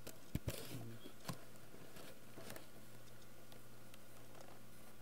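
A few scattered keystrokes on a computer keyboard, short clicks in the first two or three seconds, over a steady low electrical hum.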